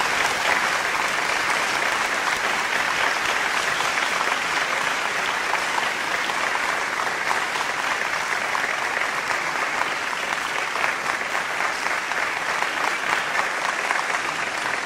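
Audience applauding: the clapping breaks out suddenly and then carries on steadily.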